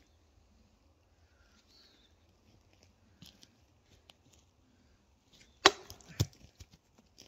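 Heavy machete blade striking wood twice, two sharp knocks about half a second apart, amid lighter ticks and crackles of wood.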